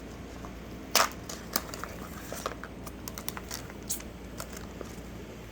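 Packaging of a slime toy box being torn open by hand: a sharp rip about a second in, then scattered crinkles and small clicks of the wrapping and box.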